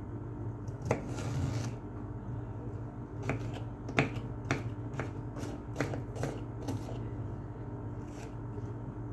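A metal spoon stirring and scraping a potato, onion and egg mixture in a frying pan, with sharp irregular clicks as it knocks against the pan, over a steady low hum.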